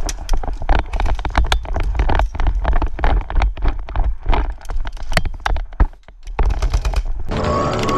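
A rapid, irregular series of sharp clicks and knocks over a low wind rumble on the microphone. Steady background music comes in near the end.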